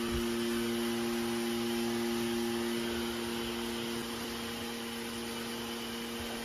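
Fresh-air supply pump feeding a respirator mask, running steadily: a constant motor hum with a hiss of moving air.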